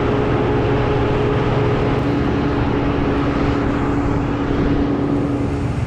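An engine running steadily under power, with a dense low rumble and a steady hum that drops away near the end.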